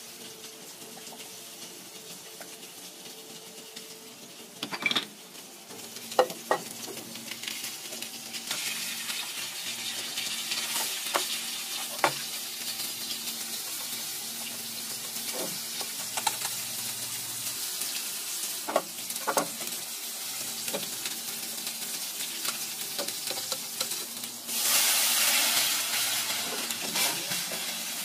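Minced garlic and dried chillies frying in oil in a small hammered aluminium pan, a steady sizzle, with a wooden stick knocking and scraping against the pan now and then. The sizzle builds about eight seconds in and flares up loudly for a second or two near the end.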